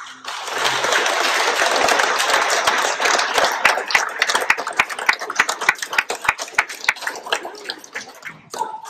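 Audience applauding at the end of a song. A dense round of clapping gradually thins to a few separate claps and dies away.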